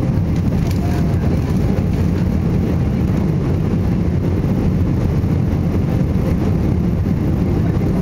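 Boeing 777-200 airliner's jet engines at takeoff power, a steady, loud, deep noise with no change in level or pitch.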